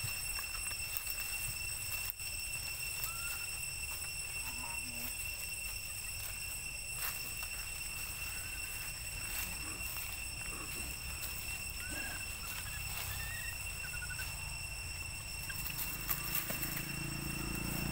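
Forest background: a steady high-pitched drone over a low rumble, with a few short, faint chirps now and then. A louder low sound comes in near the end.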